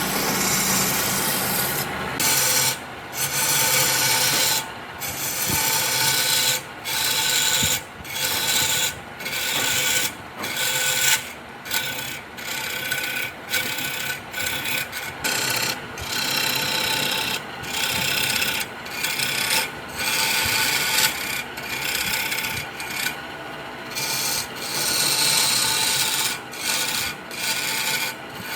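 Abrasive rubbing on wood, a rasping scrape in repeated strokes broken by short pauses roughly every second.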